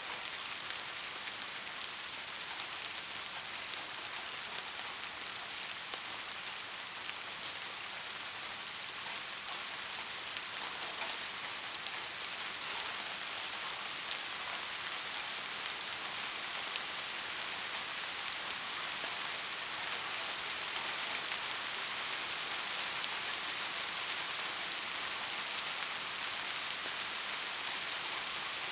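Steady soft rain falling, a dense hiss of fine drops pattering on a surface, with no thunder.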